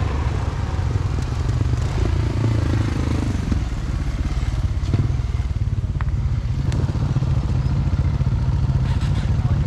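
Adventure motorbike engine running steadily while riding a rough dirt track, with clatter and a few sharp knocks from the bike over the ground.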